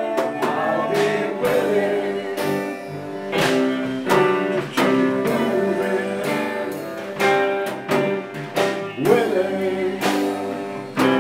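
A small band playing live: fiddle, electric bass and guitars, with strummed or plucked chords under held fiddle notes.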